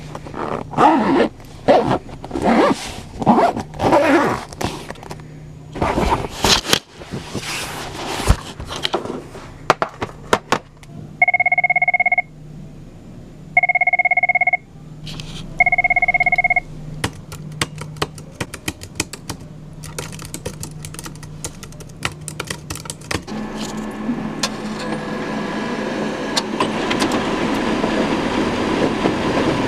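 A string of sound effects. First comes a run of short, loud noisy sounds, then a telephone ringing three times, each ring about a second long, then a scatter of clicks. Near the end a steady machine hum starts and slowly grows louder.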